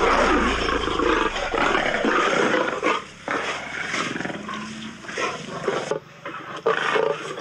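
Male lions roaring and growling as they fight, loudest over the first three seconds, with short breaks about three and six seconds in.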